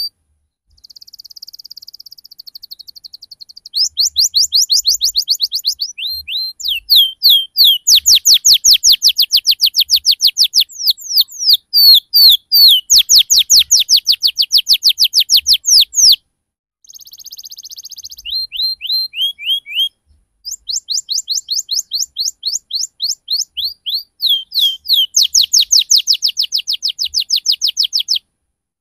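Domestic canary singing a long rolling song (ngerol): fast trills of rapidly repeated high sweeping notes and chirps, broken by short pauses about a second in, after about sixteen seconds and after about twenty seconds.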